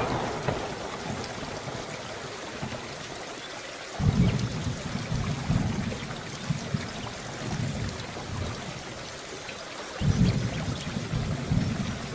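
Steady rain falling, with two low rolls of thunder rumbling in, one about four seconds in and another about ten seconds in, each lasting a few seconds.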